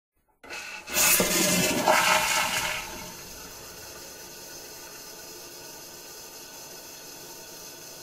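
Household toilet flushing. A loud rush of water starts about a second in and drains away by about three seconds, then gives way to a steady, quieter hiss of the tank refilling.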